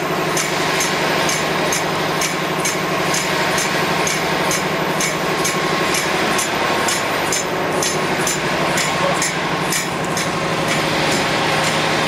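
Paper tube machine running steadily: a constant mechanical hum with a quick regular ticking, about two or three ticks a second.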